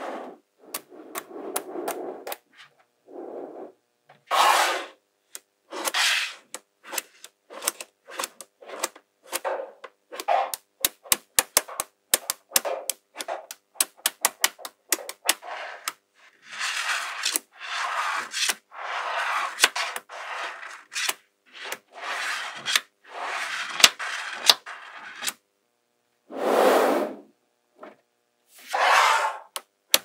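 Small metal magnetic balls clicking as they snap together, in quick runs of clicks, alternating with stretches of scraping and rattling as strips and chains of balls are slid across the table and pressed into place.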